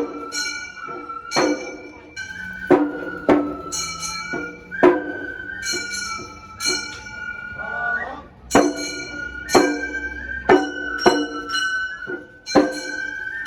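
Gion-bayashi festival music: a high transverse flute holds and steps between long notes over repeated sharp strikes of small bronze hand gongs that ring on, with a drum underneath.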